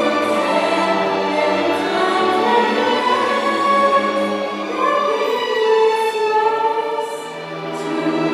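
String orchestra of violins and cellos playing sustained chords under a solo singer holding long sung notes.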